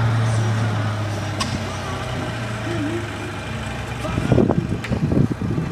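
Outdoor background of a running engine: a steady low hum, with faint voices behind it. About four seconds in, louder irregular low rumbling joins it.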